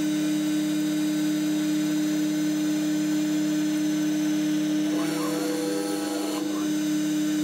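CNC wood router's spindle running at a steady pitch as it mills MDF with an 8 mm ball-nose cutter, its tone briefly shifting about five seconds in as the cut changes.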